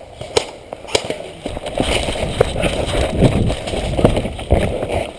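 Scattered airsoft gunfire: single sharp cracks a second or more apart, over a low rumbling noise that grows louder from about two seconds in.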